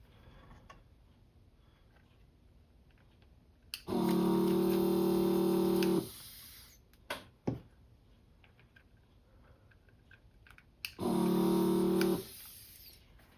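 Electric desoldering tool's vacuum pump running twice, about two seconds and then just over a second, with a steady buzz, as it sucks molten solder off a capacitor's leads; a few light clicks between the runs.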